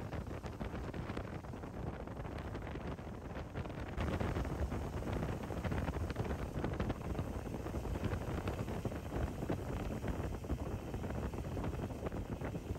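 Steady rushing wind noise buffeting the microphone, growing louder about four seconds in.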